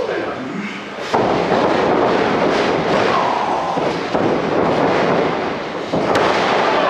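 Pro wrestling bout: sharp thuds of a wrestler being slammed onto the ring mat about a second in and again near the end, over loud, noisy crowd yelling.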